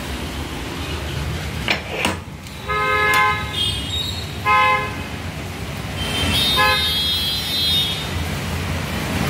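Street traffic running steadily below, with vehicle horns giving three short honks and a higher-pitched horn held for about two seconds near the end. A couple of sharp clicks come about two seconds in.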